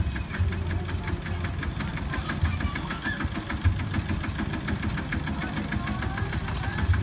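Single-cylinder diesel engine of a Kubota two-wheel walking tractor running at a steady idle, with a fast, even knocking beat.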